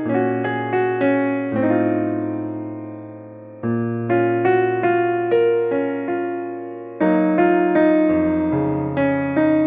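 Background music: a slow, gentle piano melody of struck notes that fade away, over held bass notes, in phrases that start afresh twice.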